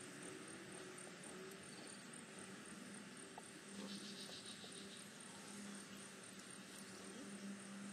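Quiet background with a short, high, pulsed chirping trill about four seconds in, typical of an insect, over a faint hiss and a low hum that comes and goes.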